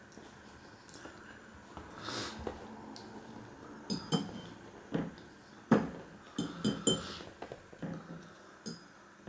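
Eating utensils clinking and tapping against a dish: a string of short, sharp clicks, some with a brief high ring, coming thickest about four to seven seconds in.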